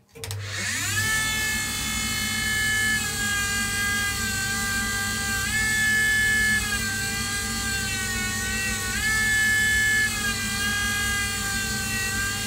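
Skate-sharpening machine's grinding wheel starting up with a rising whine, then running steadily as a figure skate blade is ground for a second pass after the holder has been fine-adjusted to grind the blade straight. The whine's pitch shifts up and down a few times.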